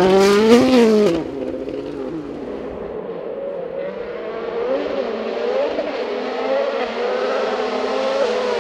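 A World Rally Car at full throttle, its turbocharged 1.6-litre four-cylinder engine loud close by, then dropping away suddenly about a second in. The engine keeps going, fainter, revving up and down through the gears and slowly growing louder.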